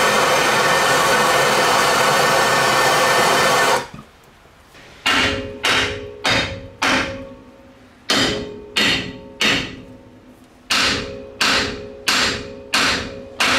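Handheld gas torch running steadily while heating a Ford TTB steering knuckle around its original ball joint, shut off just under four seconds in. About a second later a hammer starts striking the steel knuckle, about a dozen blows in two runs, each with a brief metallic ring, to drive the seized ball joint out.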